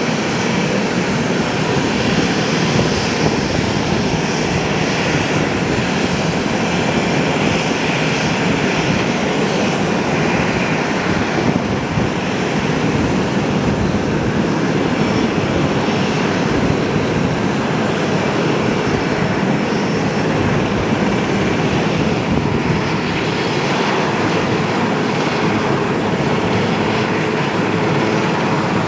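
Turbofan engines of a C-17 Globemaster transport running steadily: a constant rush of engine noise with a thin, high, steady whine on top.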